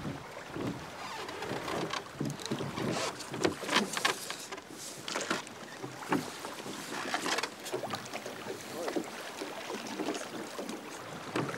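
Wooden oars of a small rowboat dipping and pulling through choppy lake water, with irregular splashes at uneven intervals.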